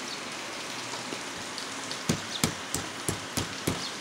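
Light hammer taps on a thin metal strip, knocking a steel lamination (plate) out of a transformer core: about six quick sharp taps in the second half, over a steady hiss.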